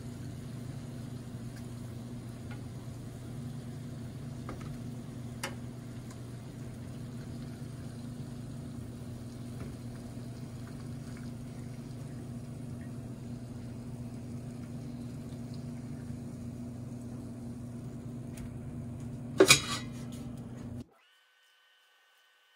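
French crullers frying in a pan of hot oil: a gentle, steady sizzle over a low hum, with a few light clicks of metal tongs. A loud clatter about nineteen seconds in, then the sound cuts off abruptly.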